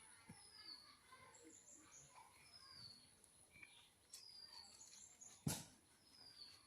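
Faint bird chirps: short high falling calls repeated every second or two, with one sharp click about five and a half seconds in.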